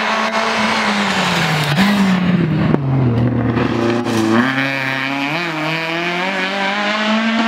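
Rally car engine at high revs, dropping in pitch as it slows for a bend, with a couple of sharp cracks. About halfway through it climbs again as the car accelerates away.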